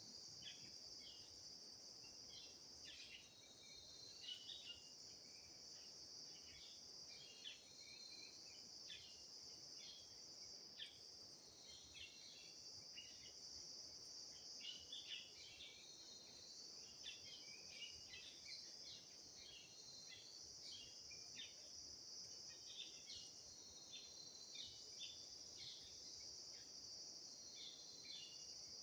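Faint, steady high-pitched insect chorus of crickets or similar insects, with many short chirping calls scattered irregularly over it.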